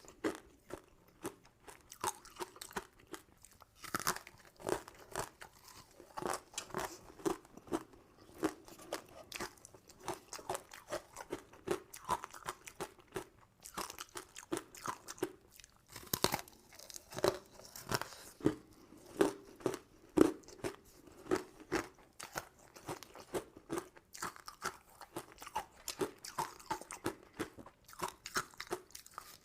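Close-miked chewing and crunching of sugary sweets, short crisp crunches following one another about twice a second.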